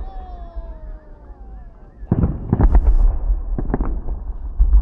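Fireworks salute bursting: a quick run of sharp bangs about two seconds in and another pair of bangs a second or so later, over a continuous low rumble. Before the bangs, a thin falling whistle is heard.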